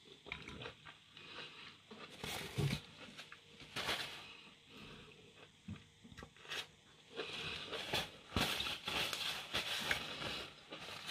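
Eating fresh orange segments close to the microphone: irregular biting and chewing clicks. From about seven seconds in, a paper towel rustles as hands are wiped.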